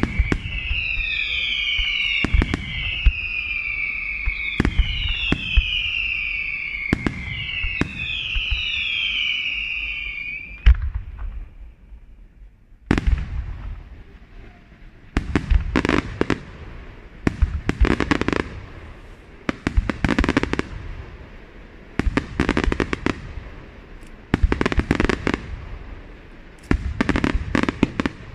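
Aerial fireworks display. For the first ten seconds, repeated falling whistles sound over a steady run of bangs. After a short lull, bursts of crackling and bangs come in clusters about every two seconds.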